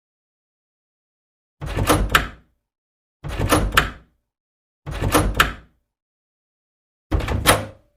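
A door worked four times in even succession. Each time is a short rattle of under a second that ends in a sharp clack.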